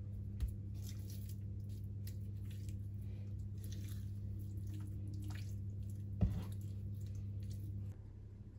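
Wet squishing of raw chicken fillets being mixed in an olive-oil and spice marinade, over a low steady hum that stops shortly before the end. A single knock about six seconds in.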